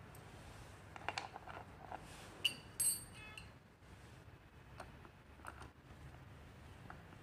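Light handling clicks, then two short metallic clinks about two and a half seconds in, and a few soft ticks as an Allen key is fitted into the bolt head on a gaming chair's plastic armrest bracket.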